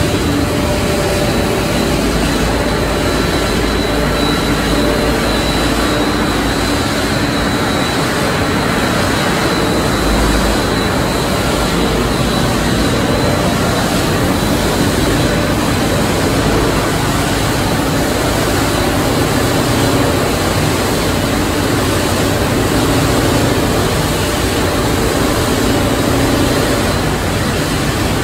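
Plastic film recycling line running: a loud, steady industrial machinery noise, with a thin high whine held over it in the first half.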